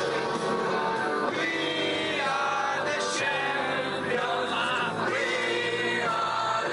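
Loud music with several male voices singing together, like a group singing along.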